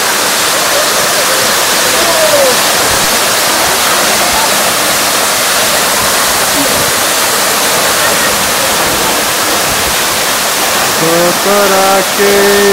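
Waterfall pouring over rock into a pool: a loud, steady rush of water. A voice comes in over it near the end.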